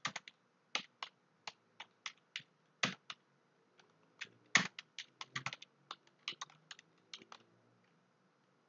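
Computer keyboard keys clicking in a quick, irregular run of keystrokes as a sentence is typed, stopping near the end.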